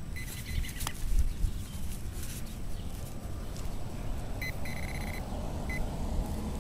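Handheld metal-detecting pinpointer beeping as it is worked through the soil of a freshly dug hole, picking up the buried coin. There is one short high beep at the start, then a cluster of beeps from about four and a half seconds in, one held for about half a second. Between them, soil scrapes and crumbles as it is dug and handled, over a low rumble of wind and handling on the microphone.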